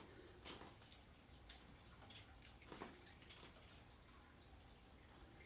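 Near silence: a faint low hum with a few scattered faint clicks.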